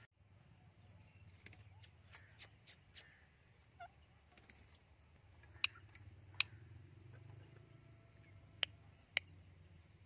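Short, sharp parakeet chirps: a quick run of five or six in the first few seconds, then four louder single ones spread over the second half, over a faint low background rumble.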